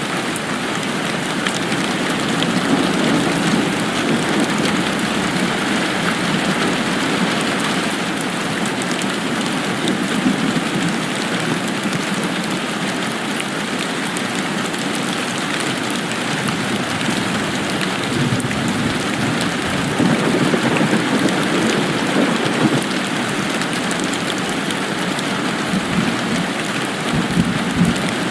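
Steady rain falling, a dense even hiss and patter that swells a little twice.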